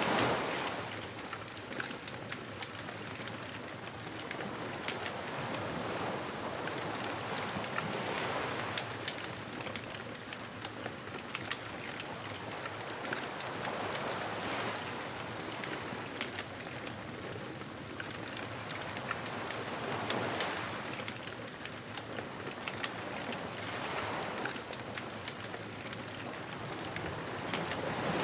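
Beach bonfire ambience: a wood fire crackling with many small pops over the wash of waves, which swell in about every six seconds.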